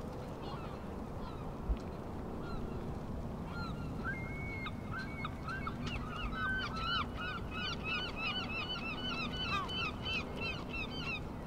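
A flock of geese honking, with many short overlapping calls building up from about three or four seconds in, over a steady rush of wind.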